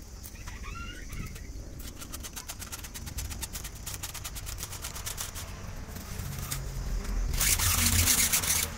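Electrical wire being pulled by hand through PVC conduit, scraping against the pipe in a run of fast ticks. A louder, longer scrape comes near the end.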